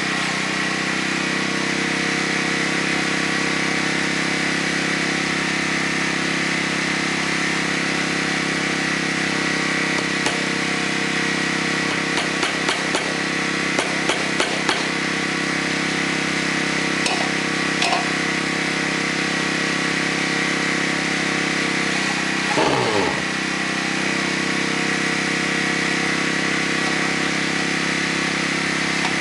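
A small engine running steadily. Around the middle come a few sharp knocks, and later a brief sound that drops quickly in pitch.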